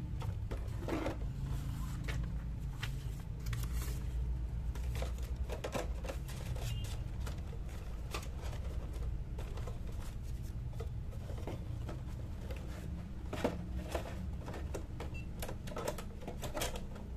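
Steady low hum with scattered light clicks, knocks and rustles of packaging and objects being handled on a table, a cluster of them near the end.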